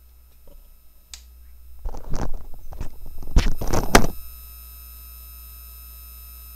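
Handling noise: about two seconds of clattering, knocks and rustles as things are moved and set down, starting about two seconds in. A steady low electrical hum runs underneath and is a little louder after the clatter stops.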